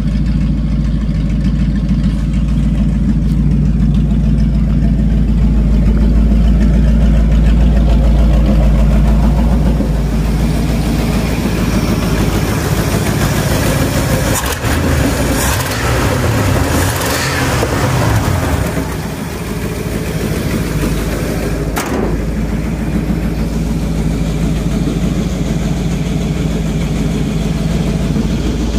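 Ford pickup's engine idling steadily on a newly fitted carburetor, which the owner says has cured its overly high idle. Around the middle the throttle is blipped a few times, sending the pitch up and down, with a few sharp clicks.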